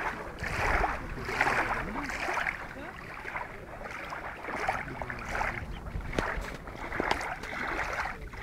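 Gusty wind on the microphone and choppy lake water: a rushing noise that swells and fades every second or so over a low rumble.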